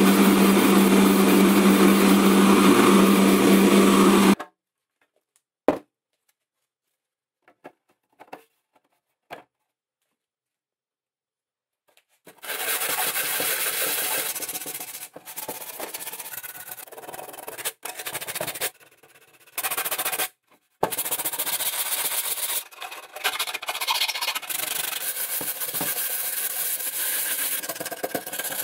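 A small motor hums steadily and cuts off about four seconds in, followed by near silence with a few faint clicks. From about twelve seconds in come scratchy sanding strokes, in stretches with short pauses.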